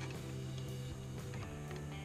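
Background music with sustained, stepping notes.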